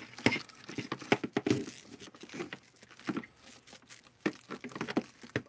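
Flexible ribbed plastic vacuum hose being handled and wrapped around a Makita cordless wet/dry vac's plastic body, giving irregular rustles and scrapes with scattered light knocks and clicks.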